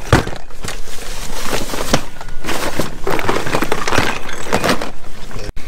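Continuous rustling, crackling and knocking of gear and a plastic cooler box being shifted and packed into a car's boot, with many sharp clicks. It breaks off abruptly just before the end.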